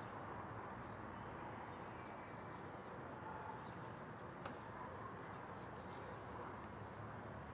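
Faint outdoor ambience near a forest: a steady low rumble with a few faint bird chirps, and a single small click about four and a half seconds in.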